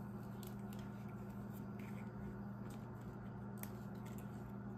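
Thin clear plastic film being peeled off a cured resin coaster: faint crackles and a few small sharp ticks over a steady low hum.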